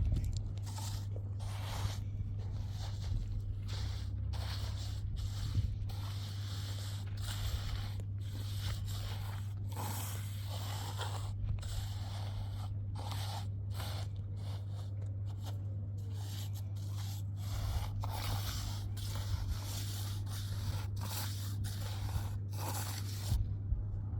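Irregular scraping and crunching strokes over a steady low hum.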